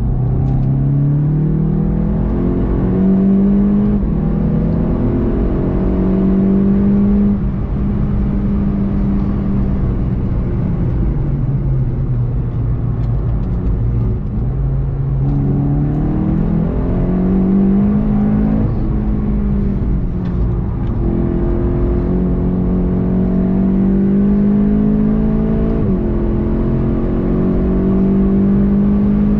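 VW Golf GTI TCR's turbocharged four-cylinder engine pulling hard on track, its pitch climbing through the revs and dropping sharply at each upshift. It eases off for a stretch in the middle, then climbs through the gears again.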